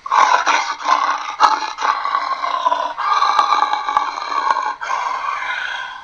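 A person's voice roaring through an empty cardboard paper towel tube, imitating an allosaurus. One long roar breaks off near the end and is followed at once by a shorter second roar that fades away.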